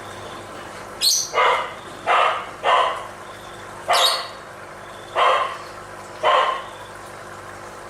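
A dog barking, seven short barks over about five seconds.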